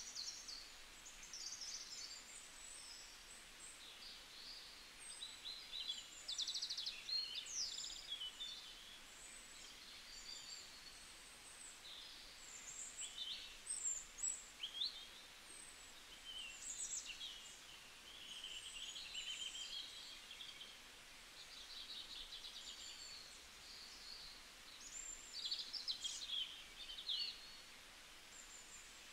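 Birds chirping and trilling: many short, high-pitched calls and quick rising and falling sweeps, one after another, over a faint hiss.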